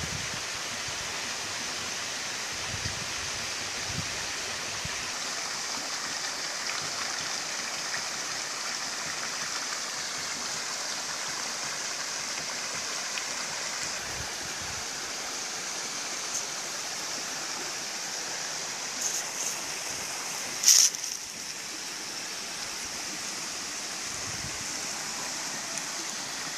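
Steady hiss-like outdoor background noise, with one brief sharp high-pitched sound about three-quarters of the way through.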